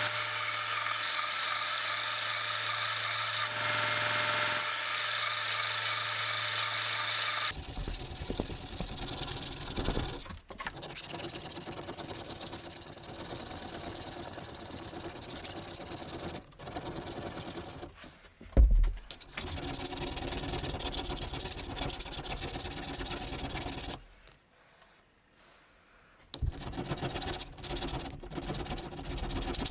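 Belt sander running with a steel hammer head pressed against the belt: a steady hum under a grinding hiss, for about the first seven seconds. Then a flat file scraping across the hammer head clamped in a vise, in long stretches broken by short pauses, with one sharp knock partway through and a silence of about two seconds near the end.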